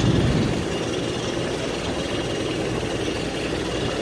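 Steady mechanical hum of a parked Airbus A320 airliner, with the low rumble easing about half a second in.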